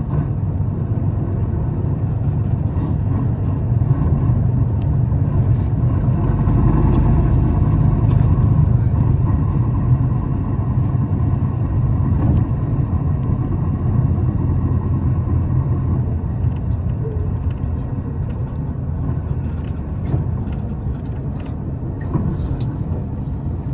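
Isuzu Erga city bus heard from inside the passenger cabin while driving: a steady low diesel engine drone and road rumble, which swells a little about six to nine seconds in.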